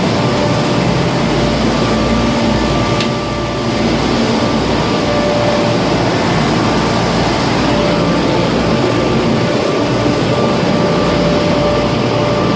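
Large commercial HVAC cooling equipment running: a loud, steady rush of air with a faint steady hum-tone over it.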